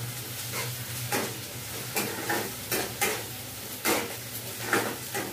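Spatula scraping and knocking against a pan as food is stirred and fried, over a steady sizzle of hot oil. There are about ten uneven strokes, one or two a second, with a low hum underneath.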